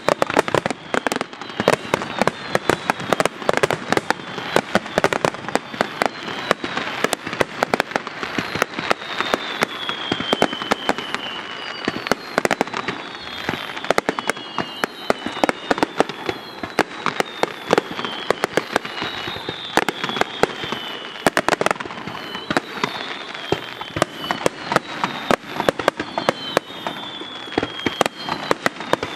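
A fireworks display: a dense, unbroken run of sharp bangs and crackling pops, with repeated high falling whistles over it.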